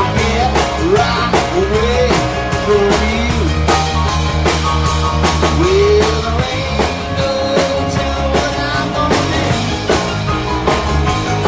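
Rock band playing: drums keep a steady beat under bass and guitar, with a lead line of bending, sliding notes.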